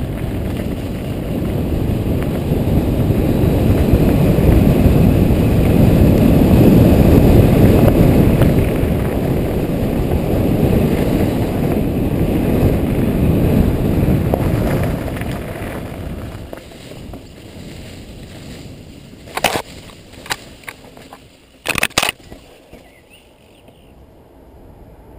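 Mountain bike rolling fast over a gravel trail, heard through a helmet-mounted camera: a loud, rough rumble of tyres and wind on the microphone, which eases off after about fifteen seconds. Near the end come a few sharp clicks.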